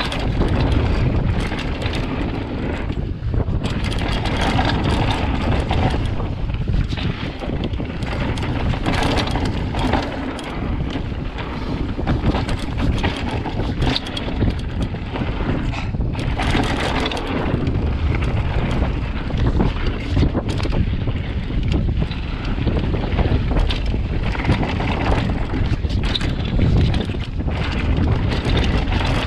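Downhill mountain bike running fast down a dirt and gravel trail: steady wind rushing over the camera microphone, tyres rolling on the dirt, and a constant run of rattles and knocks as the bike hits bumps.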